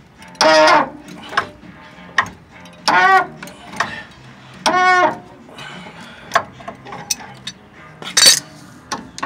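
Wrench working a tight fitting at a rusty rear brake backing plate: three short, loud metal squeals as it turns, with scattered clicks and taps of the tool and a sharp scrape near the end.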